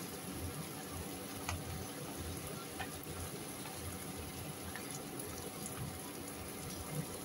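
Tomato and sausage sauce simmering steadily in a pan on an induction hob, with a thin stream of liquid pouring into it near the start and a few faint ticks.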